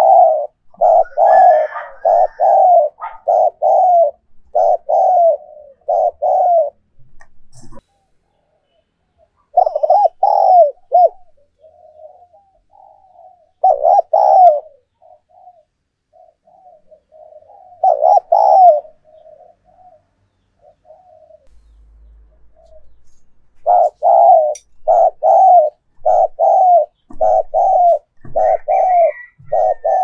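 Female spotted dove cooing in quick runs of short, low coos, about one and a half a second, with a few pauses between runs: the cooing call used as a lure to stir male doves to coo.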